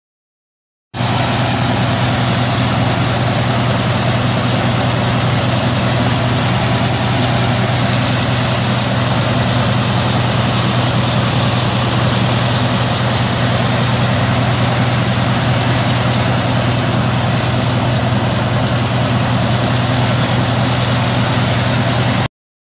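Oil drilling rig's heavy diesel engines and machinery running steadily: a loud, constant drone with a strong low hum that does not change. It starts about a second in and cuts off abruptly near the end.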